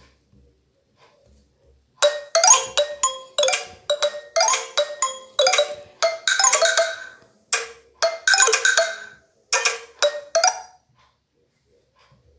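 A ringtone played on a Microsoft Lumia 535's loudspeaker: a melody of short struck notes in quick groups, starting about two seconds in and stopping near the end.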